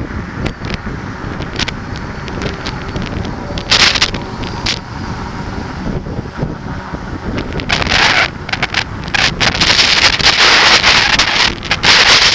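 Wind buffeting the microphone of a camera on a moving bicycle, mixed with road traffic noise. There is a short sharp burst about four seconds in, and the hiss grows much louder from about eight seconds on.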